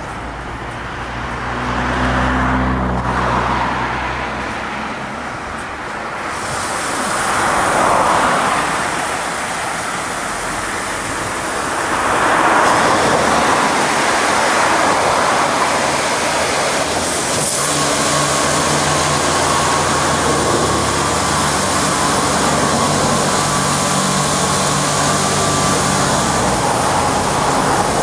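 Stargate S111 car-wash gantry at work: its spray arm sweeps around the car, blasting water with a hiss that comes in about six seconds in, over the hum of the machine's pump and motors. The sound swells and fades several times as the arm passes, then settles into a steady drone with a held tone from about the middle on.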